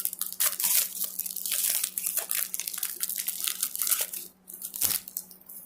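Trading card pack wrapper being torn open and crinkled by hand: a run of dense, crackly rustling and ripping that dies away near the end.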